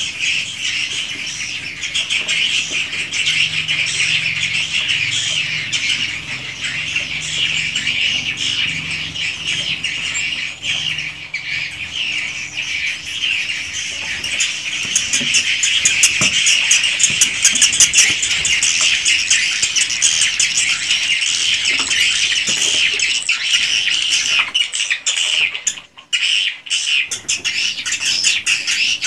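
Many edible-nest swiftlets chirping and twittering together inside a swiftlet house, a dense continuous chatter, with a stretch of rapid clicking about halfway through.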